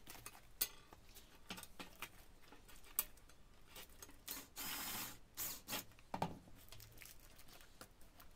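Faint handling sounds of a flexible aluminium duct being fitted to a plate: scattered clicks and crinkling, with a cordless drill driver briefly driving a screw around the middle.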